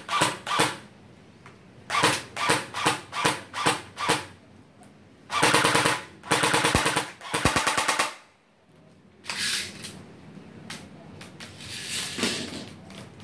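Double Eagle UMP45 airsoft electric gun (AEG) firing. First comes a run of single shots, a few a second. Near the middle it fires three short rapid-fire bursts, and a few clicks follow later.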